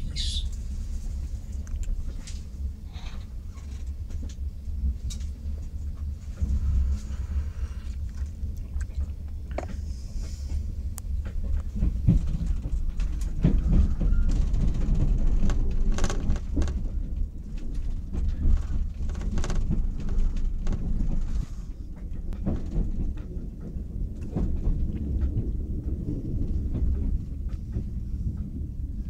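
Passenger train heard from inside the carriage as it pulls out of a station: a steady low rumble of the running gear with irregular clicks and knocks as the wheels cross rail joints and points, a little louder in the middle.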